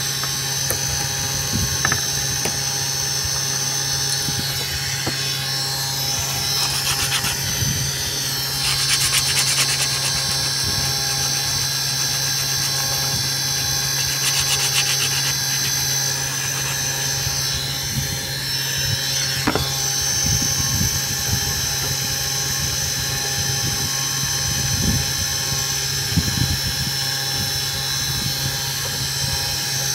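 Homemade CNC router running while it cuts a board: a steady, high-pitched machine whine from its spindle and motors over a low hum, with a few short rasping stretches partway through.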